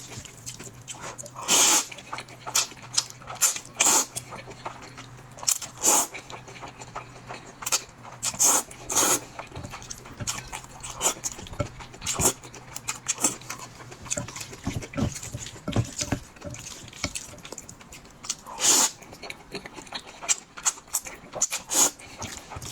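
A person eating instant noodles: irregular slurps, chewing and mouth smacks, the louder slurps coming every second or two.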